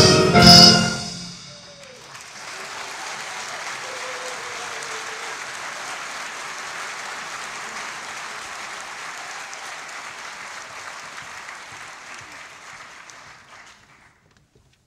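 A live orchestra cuts off on its final chord about a second in, then the audience applauds steadily, the clapping thinning out and dying away near the end.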